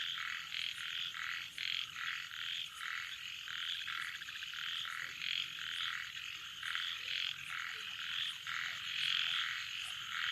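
A chorus of frogs calling at night, many short, rapid, repeating calls overlapping each other without a break, frogs answering one another across the field.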